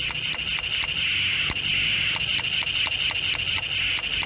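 Small plastic toy pistol clicking rapidly as its trigger is worked, about five or six sharp clicks a second, over a steady high-pitched buzz.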